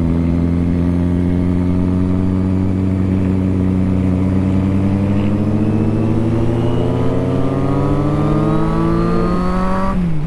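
Motorcycle engine under steady acceleration, its pitch climbing slowly and evenly for about ten seconds, then dropping sharply near the end.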